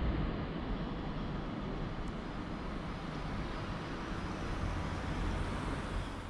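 Steady low rumble of a train standing at a station platform, with no distinct knocks or horn.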